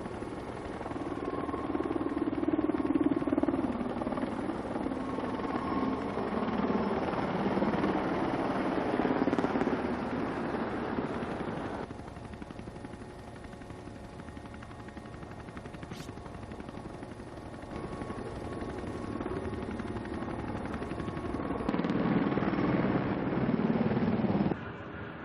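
Military aircraft flying over, with the rapid chop of helicopter rotors in the noise. The sound drops abruptly about halfway through and changes again twice near the end.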